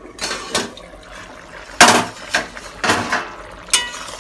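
Stainless steel lid and ladle clanking against a cooking pan: a run of sharp metal knocks, the loudest about two seconds in, and a short ringing clank near the end. A pumpkin curry bubbles gently in the open pan.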